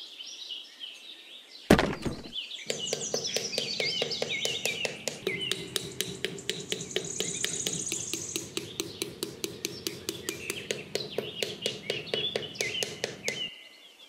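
Rapid, even tapping knocks, about six a second, begin a little over two seconds in and stop just before the end. One sharp knock comes shortly before them. Bird chirps sound throughout.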